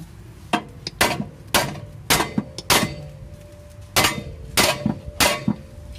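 A hammer striking the steel front suspension about eight times, roughly one blow every half second with a short pause around three seconds in, each blow with a metallic ring. It is hammering the bad ball joint to knock it out.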